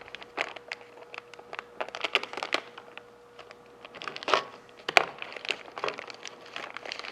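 Packaging crinkling and rustling by hand while a bracket kit is unpacked, with many small clicks and knocks of parts being handled, two louder knocks about four and five seconds in. A faint steady hum runs underneath.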